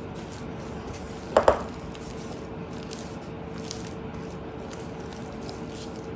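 A utensil folding thick blueberry batter in a mixing bowl: soft wet scraping and squelching, with one sharp knock against the bowl about a second and a half in. A steady low hum runs underneath.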